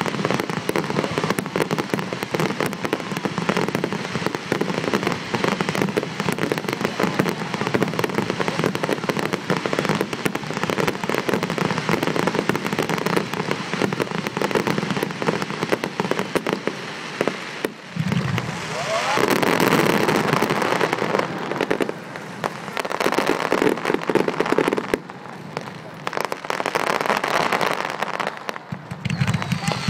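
Aerial fireworks bursting: a dense, continuous crackling and popping of many shells going off at once, swelling louder twice in the latter half.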